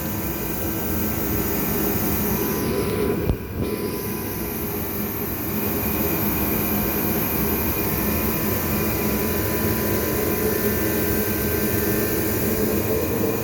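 Steady roar of a running kerosene heater, with a brief dip about three seconds in.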